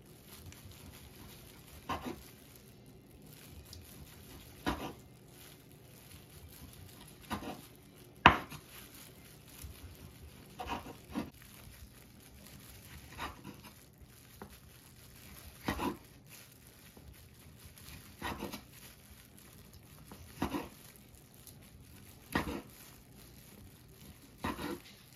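Chef's knife slicing through boiled pork hock and knocking on a bamboo cutting board at the end of each cut: a sharp knock every two seconds or so, the loudest about eight seconds in.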